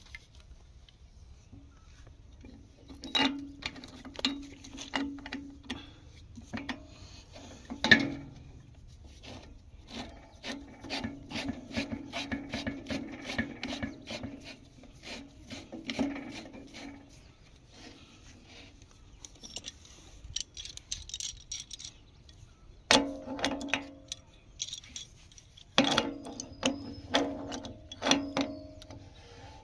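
Threaded pipe fittings being screwed together by hand and then tightened with a pipe wrench. The threads scrape as they turn, with many small clicks and a few sharp metal knocks.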